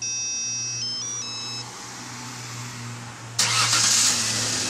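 Remote start on a 2001 Ford Ranger. First comes a short run of electronic beeps that step in pitch. About three and a half seconds in, the truck's engine cranks and starts with a sudden loud burst, then settles.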